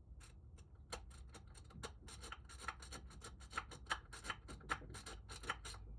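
Metal rake pick worked in and out of a pin-tumbler lock under tension, a string of small sharp clicks, about three or four a second, as it flicks over the pins.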